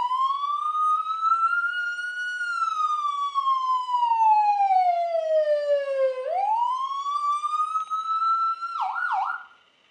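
A human voice imitating a police siren: a long wail that climbs, slowly falls and climbs again, then a few quick warbling yelps near the end before it stops.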